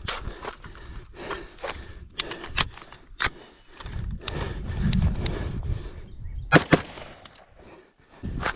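A rifle firing: a series of sharp cracks at irregular spacing, the loudest pair close together about two-thirds of the way in, over low rumbling noise.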